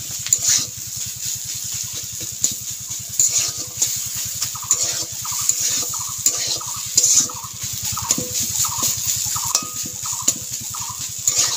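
Metal spatula scraping and knocking in a steel kadai as boiled potatoes are stirred into a chicken masala. Short squeaky chirps come between the scrapes, about twice a second in the later part.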